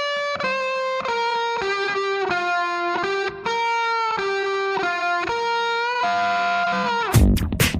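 Background music: a lone electric guitar plays a melody of held notes with no drums behind it. The full beat with bass and drums comes back near the end.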